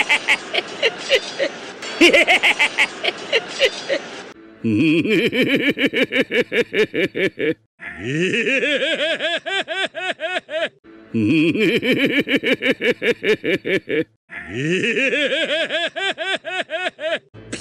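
An animated character's voice-acted laughter. First comes Bartolomeo's rapid, high cackle ("behehehe") for about four seconds. Then Doflamingo's rhythmic "fufufu" laugh plays four times in a row, each about three seconds long, with short gaps between them.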